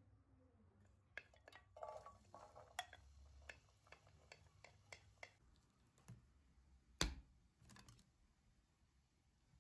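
Wooden spatula tapping and scraping against a bowl as chopped onion is tipped into a metal cooking pot: a run of light clicks and knocks, then one sharper knock about seven seconds in.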